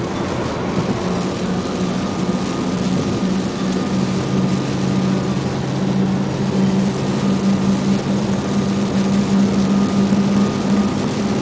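Vehicle engine running with a steady low hum over tyre noise on a wet road, heard from inside the cabin, growing slowly louder.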